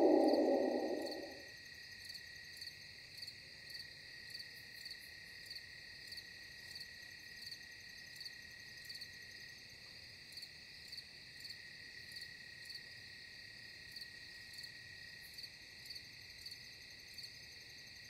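Faint crickets chirping steadily, with a regular pulse of chirps about every half second or so. A loud falling howl-like glide fades out in the first second and a half.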